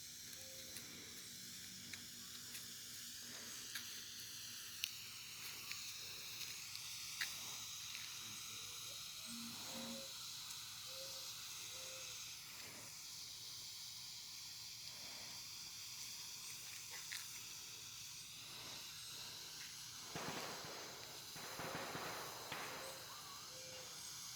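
Smoke firework burning with a faint, steady hiss, with a few small ticks and a louder rush of noise about twenty seconds in.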